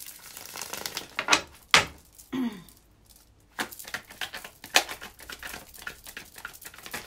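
A deck of tarot cards being shuffled by hand: a run of soft riffling and clicking, with a few sharper taps. A short falling tone sounds once, a little over two seconds in.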